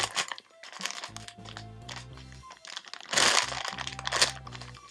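Plastic packaging of an iBloom Strawberry squishy crinkling as the toy is squeezed through the bag, with the loudest crackles about three seconds in and again near four seconds, over background music with steady low notes.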